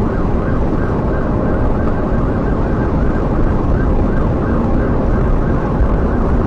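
Police car siren in fast yelp mode, rising and falling about three times a second, heard from inside the patrol car over heavy road and wind noise as it runs at over 100 mph.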